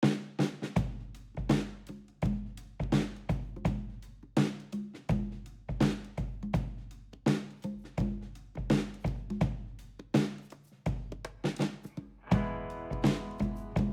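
Background music opening with a steady drum-kit beat of bass drum and snare; near the end, pitched instruments come in over the beat.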